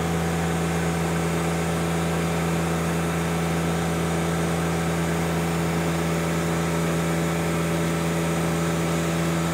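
John Deere 1025R's three-cylinder diesel engine running steadily at full throttle, holding one even pitch, while its hydraulic pump is loaded against a restriction valve during a flow test.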